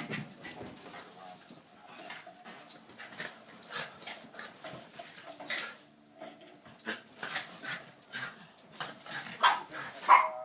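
Two small British Royal Terriers playing, giving short yips and whimpers in an irregular string, with a louder yip near the end.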